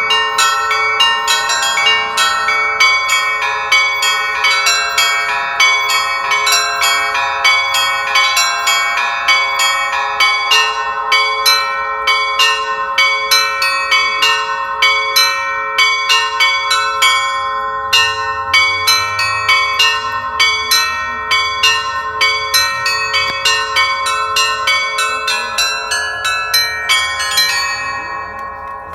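Church bells pealing: several bells struck in quick succession, about five strikes a second, over the steady hum of bells still sounding. Near the end the striking stops and the ringing dies away.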